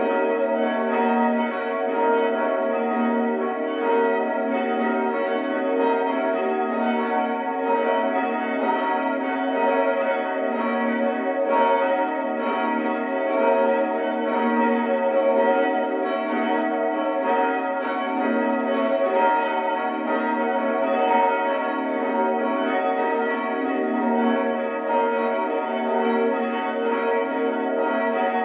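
Church bells ringing in a steady, unbroken peal, the strokes overlapping so the tones hang together.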